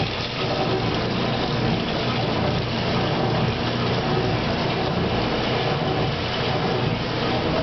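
Water pouring from the fill spout into the tub of a 1957 Speed Queen washer as it fills for a wash, a steady rush with a low hum under it.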